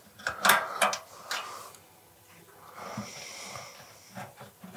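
A few sharp metallic clicks and clinks of hand wrenches being worked on a moped's frame and fuel tank mounts, then a short faint rasp about three seconds in.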